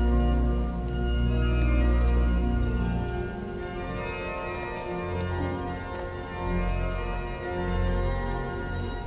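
Church organ playing a slow closing voluntary after Mass: sustained chords over deep pedal bass notes. The bass eases about three seconds in, then comes back in shorter held notes.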